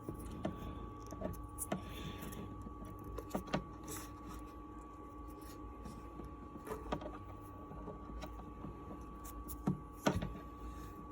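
Scattered light clicks and small knocks of close-up hand work, with a few sharper knocks about a third of the way in and near the end, over a faint steady hum.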